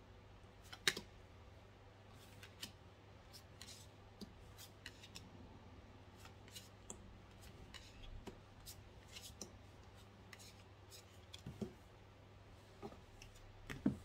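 Tarot cards being dealt one by one onto a tabletop: a scattered series of faint, light clicks and taps as each card is snapped down and slid into place. The sharpest clicks come about a second in and near the end.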